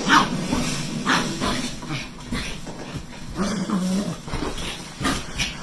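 A dog making short, irregular vocal sounds.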